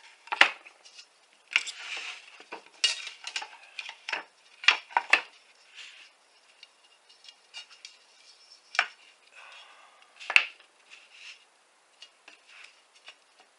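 Scattered light metallic clinks, knocks and rattles of a thin 1/16-inch aluminum sheet and tools being handled and set down on a table. The loudest knocks come about half a second, three, five and ten seconds in.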